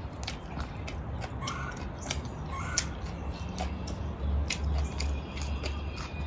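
Close-up mouth sounds of a person eating with her fingers: chewing and wet lip smacks with scattered short clicks, over a steady low rumble.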